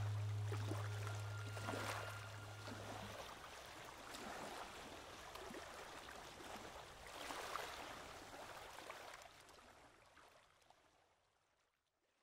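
Gentle water sounds, small waves washing and lapping, swelling and easing a few times and fading out to silence near the end. A low steady hum is heard under it at first and stops about three seconds in.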